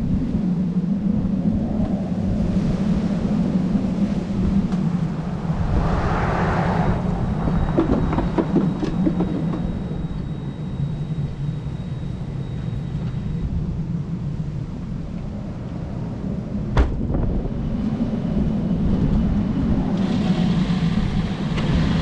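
Steady low rumble of a car engine running at idle, with one sharp click about 17 seconds in.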